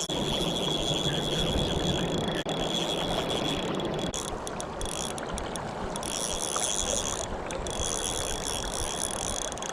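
Shimano Miravel 1000 spinning reel being wound in with a ratcheting, geared clicking while a hooked shad is played on light line, over the steady rush of the river.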